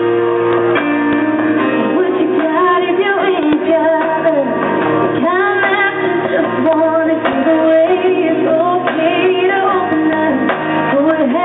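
A woman singing lead over a live band playing a slow song. Held instrumental chords open it, and her voice comes in about two seconds in.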